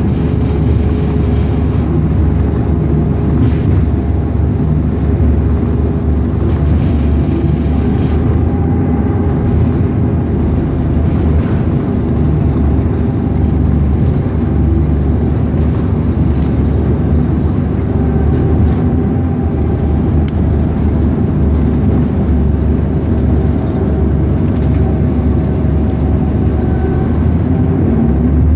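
Bus engine and road noise heard from inside the bus as it drives: a steady low drone with no breaks.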